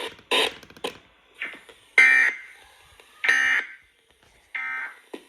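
Emergency Alert System end-of-message data bursts: three short, buzzy digital squawks about a second apart, marking the end of the tornado watch alert.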